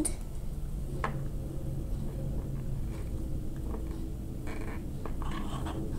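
Low, steady background hum and noise of a video-call line, with a single sharp click about a second in and a few faint soft sounds near the end.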